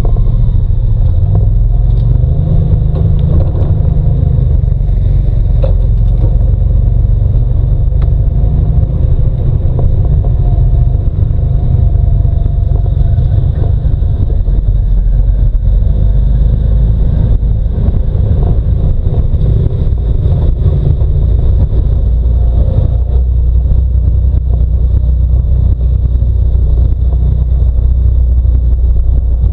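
Side-by-side UTV engine running steadily while driving along a dirt trail, heard from on board as a loud, deep rumble.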